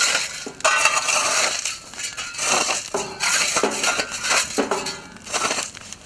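Burning grass and reeds crackling and hissing as a fire hose plays onto the flames, in repeated loud noisy bursts about a second apart.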